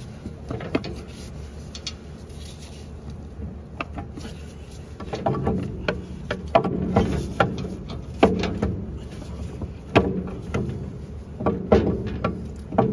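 Scattered metal knocks and clunks as a Scotch yoke hydraulic lift pump is worked loose inside a tractor's rear transmission housing. A few knocks come early, then more come in quick groups over the second half.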